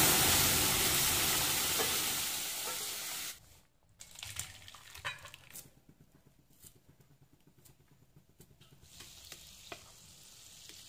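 Loud sizzle of dal poured into hot oil tempered with cumin seeds in an aluminium kadai. The hiss fades slowly and stops abruptly about three seconds in. A few faint clicks follow.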